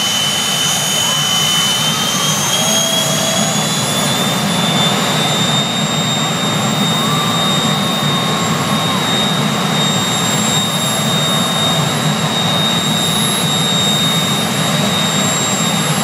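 Jet engine of a jet-powered locomotive running steadily at high power: a loud, even rush with a high whine. The whine climbs slightly over the first few seconds and then holds.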